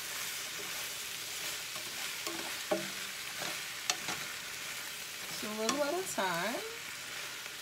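Cooked penne stirred with a spatula into chicken and spinach frying in a square copper-coloured pan: a steady sizzle with scrapes and light clicks of the spatula against the pan. A brief voice sound comes about six seconds in.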